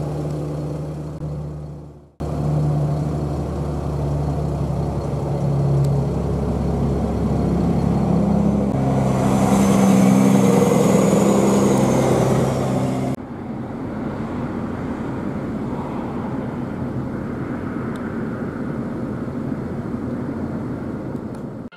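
Engines running steadily, broken by sharp cuts about two seconds in and again about two-thirds of the way through. Just before the second cut a high whine rises and falls.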